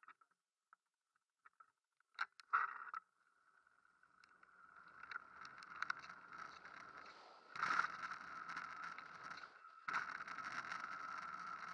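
Mountain bike setting off down a loose gravel trail: a few sharp knocks as it starts moving, then tyres crunching and the bike rattling over the gravel, building as speed picks up, with louder rough patches twice.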